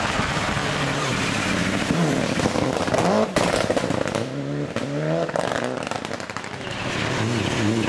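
Mitsubishi Lancer Evolution rally car's turbocharged four-cylinder engine revving hard through a corner, its pitch climbing in repeated surges, with sharp cracks and pops from the exhaust.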